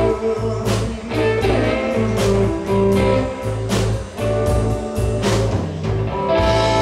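Live rock band of electric guitar, bass guitar and drum kit playing the closing bars of a song, with regular drum and cymbal hits. Near the end the drumming stops and a final chord rings on.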